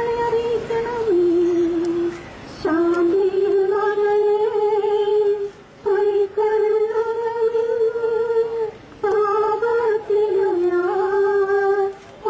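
Slow singing in long, held notes, in phrases of about three seconds with short breaks between them.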